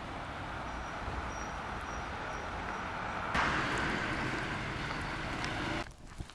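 Street traffic: the steady noise of cars driving on a city road, getting louder a little past halfway, then cutting off sharply near the end.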